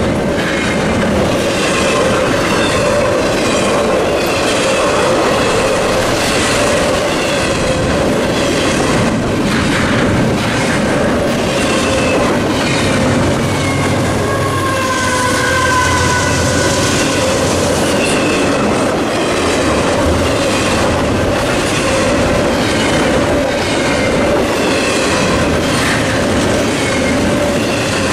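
Double-stack intermodal freight cars rolling past at a grade crossing: a steady rumble and clickety-clack of wheels on the rails, with a brief wheel squeal about halfway through. The crossing's NEG electronic bell rings over the train noise.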